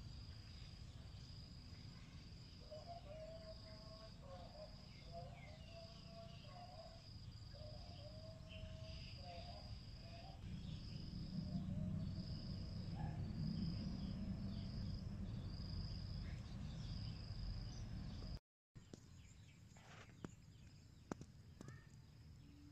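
Meadow ambience: an insect trilling in a high, steady tone broken into repeated pulses about a second long, with low wavering animal calls in the first half and a low rumble that swells around the middle. The sound drops out briefly near the end, then only faint clicks remain.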